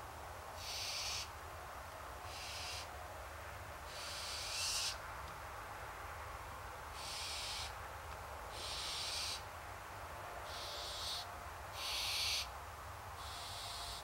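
Barn owls giving repeated hoarse, hissing begging calls, about nine of them, each lasting roughly half a second to a second with short gaps between, the sign of hungry owls calling for food.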